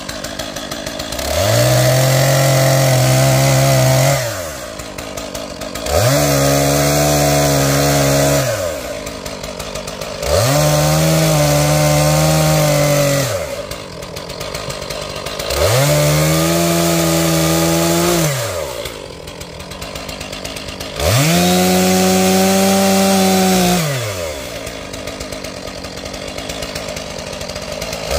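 Stihl MS461 two-stroke chainsaw bucking logs: five times it is throttled up to full speed for two to three seconds, pitch sagging slightly under load in the cut, then drops back to idle between cuts.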